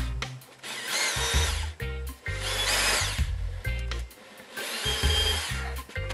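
Bosch corded hammer drill run in three short bursts of about a second each, its motor whine rising and falling as the trigger is squeezed and released.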